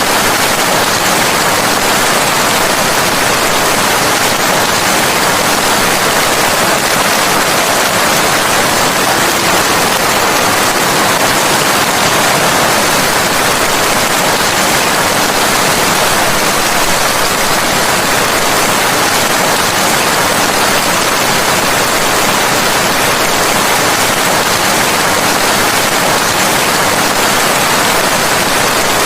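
Steady, dense rain falling, a constant hiss with no thunder or breaks.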